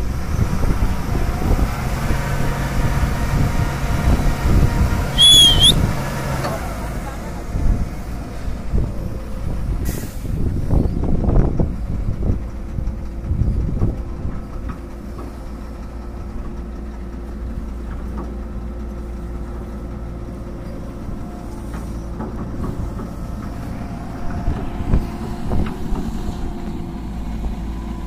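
Heavy diesel engines of a tipper truck and a Tata Hitachi crawler excavator running, working harder through the first dozen seconds and steadier after. A brief high squeal comes about five seconds in, and a sharp click about ten seconds in.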